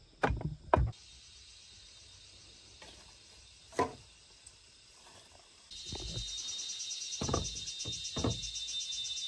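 A bamboo pole tamping soil around a bamboo post: three sharp thuds in the first second. A single knock follows, and from about halfway a steady, finely pulsing insect chorus sets in, with a few dull thuds beneath it.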